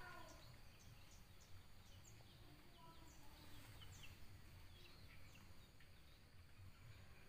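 Very quiet ambience: small birds giving short, high, falling chirps scattered throughout, over a faint low rumble.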